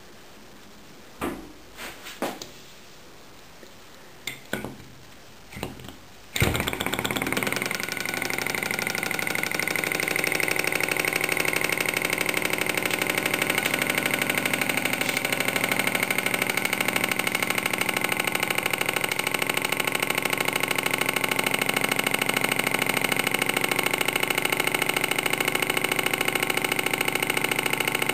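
Small model Stirling hot-air engine with two finned cylinders: a few light knocks, then about six seconds in it starts running, its pistons and flywheel making a steady, fast mechanical clatter that holds to the end.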